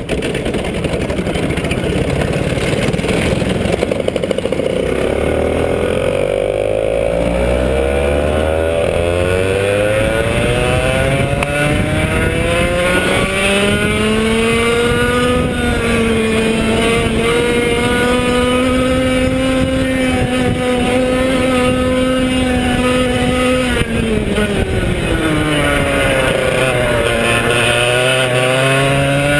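Arisco 100cc two-stroke kart engine, direct drive with no clutch, pulling away: rough and low for the first few seconds, then the revs climb steadily for about ten seconds and hold high. A few seconds before the end the revs drop as the kart slows, then climb again.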